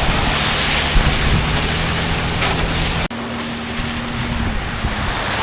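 Off-road vehicle engine running steadily while driving up a trail, half buried under heavy wind and road noise on the microphone. The sound cuts abruptly about three seconds in and resumes with the engine note slightly higher.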